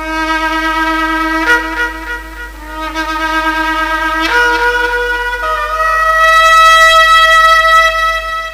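Shofar (ram's horn) blown in a series of held blasts, each starting sharply. The last, from about halfway through, steps up in pitch and is the longest and loudest before it stops.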